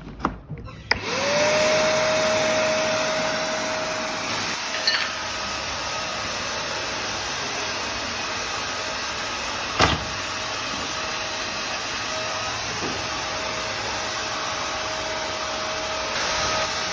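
A 15-litre vacuum cleaner is switched on about a second in. Its motor whine rises and settles into a steady run over a rushing hiss, with a sharp click about halfway through, and it starts to wind down at the very end.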